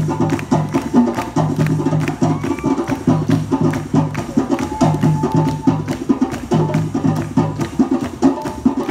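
Percussion-heavy dance music with a fast, even beat of sharp wood-block-like clicks over drums and a repeating low bass figure.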